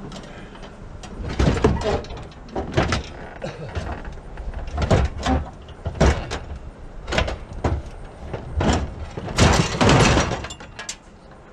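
Stripped-down riding lawn mower chassis clanking and knocking against a truck bed as it is heaved aboard, a string of irregular metal bangs, with a longer scrape as it slides into place near the end.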